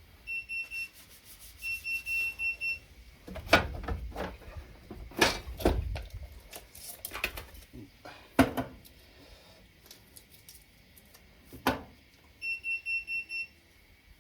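Wheel balancer beeping in short runs of rapid high beeps near the start and again near the end, with four sharp knocks with a ringing tail in between as the wheel is handled and weighted.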